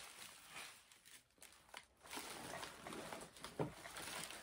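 Paper cards and packaging rustling as they are handled, with a soft knock about three and a half seconds in.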